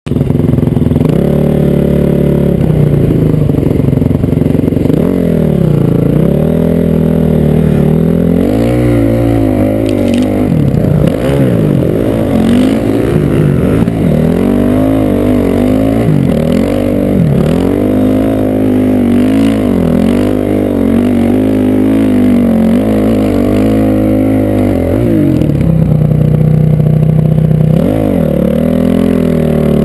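Honda CRF single-cylinder four-stroke dirt bike engine being ridden hard through snow. Its pitch rises and falls again and again as the throttle is opened and closed.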